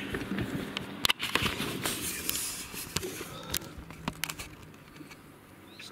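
Camera handling noise: irregular sharp clicks and knocks, thickest in the first couple of seconds and thinning out toward the end, over a faint low background hum.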